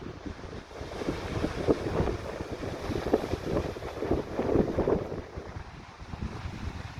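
Sea waves washing onto the beach in uneven surges, with wind buffeting the microphone.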